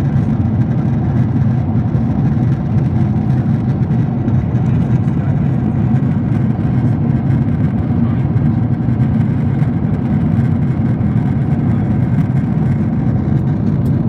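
Steady in-flight cabin noise of a Boeing 777 airliner: a loud, even, low drone of the jet engines and airflow, heard from a window seat inside the cabin.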